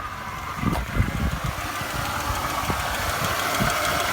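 2006 Chevrolet Impala's 3.9-litre V6 idling roughly, stumbling with irregular low thumps: a misfire, logged as cylinder 6 (code P0306). A steady whine sits above the engine note.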